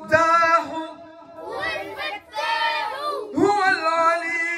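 A group of children singing together in short phrases, each held on steady notes, with brief breaks between them.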